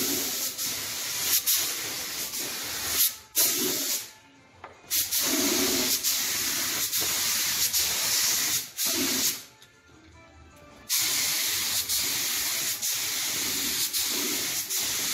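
Gravity-feed compressed-air spray gun hissing in four bursts with short breaks between, as the trigger is pulled and released: clear gloss lacquer being sprayed onto an MDF cabinet as the final finish coat.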